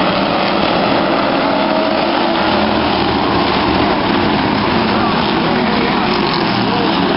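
A pack of stock cars racing on a short oval, many engines running loudly together in a steady, continuous drone as the field goes through the turns.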